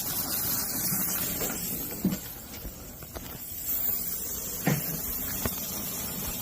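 Steady hiss of a brazing torch flame on copper tubing, with a few light knocks of the work being handled.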